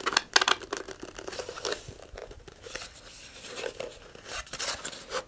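Model rocket engine mount with its centering rings scraping and rubbing as it is pushed by hand into a cardboard body tube, sliding over lines of wet wood glue, in irregular strokes that are loudest in the first half second.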